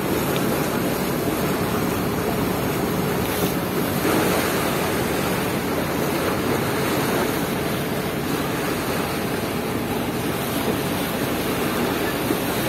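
Steady rushing noise of wind and water from a boat under way, with wind buffeting the microphone.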